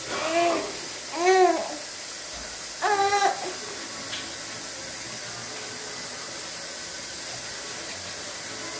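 Baby making three short vocal sounds, each rising and then falling in pitch, in the first few seconds, over a steady background hiss.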